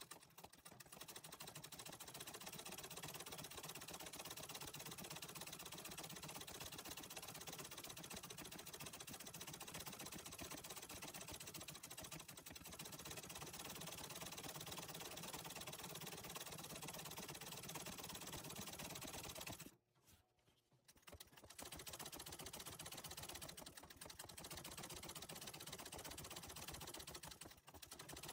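Antique treadle sewing machine stitching embroidery, a quiet, rapid, even clatter of the needle running steadily. It stops for about a second roughly two-thirds of the way through, then runs on.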